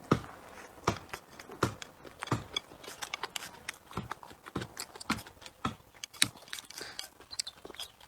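Close-miked chewing of crunchy food, a sharp crunch about every two-thirds of a second in a steady jaw rhythm.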